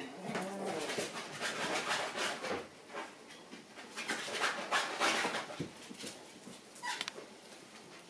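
Shiba Inu puppies play-fighting: quick scuffling and small puppy noises through the first half, then quieter, with a short high yip about seven seconds in.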